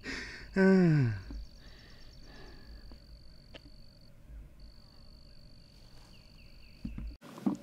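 A steady high-pitched insect trill from the field, breaking off briefly about four seconds in. Just under a second in, a person's voice makes a loud falling sigh-like sound, and all sound cuts off abruptly near the end.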